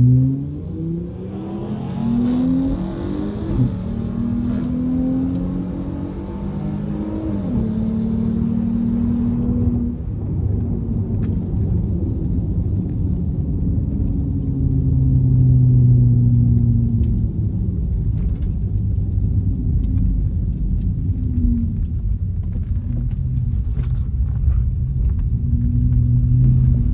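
2019 Dodge Charger's 3.6-litre Pentastar V6 running hard under acceleration. Its pitch climbs over and over through the first nine seconds over a hiss, then it settles into a steadier, lower drone.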